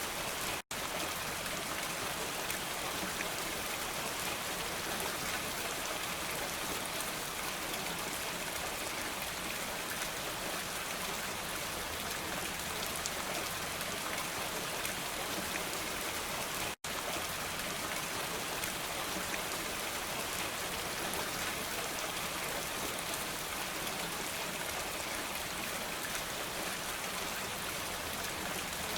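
Steady rainfall, an even hiss of drops with no thunder. It cuts out to silence for an instant twice, about a second in and again midway.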